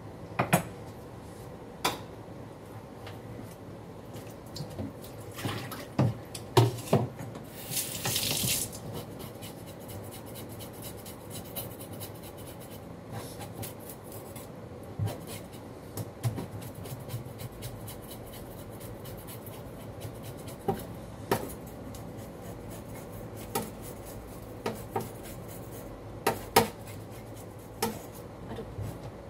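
Kitchen food-preparation noises: scattered knocks and clinks of dishes and utensils on the counter, with a short rush of water from a tap about eight seconds in.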